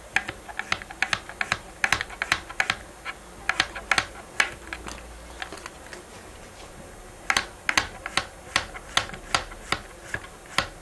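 Kitchen knife slicing a zucchini into rounds, each cut ending in a sharp tap of the blade on the cutting board. The taps come unevenly at first, stop for about three seconds midway, then pick up again in a steady run of about three cuts a second.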